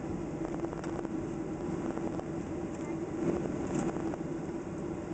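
Jet airliner cabin noise while taxiing: the engines' steady drone heard from inside the cabin, with faint scattered clicks and rattles.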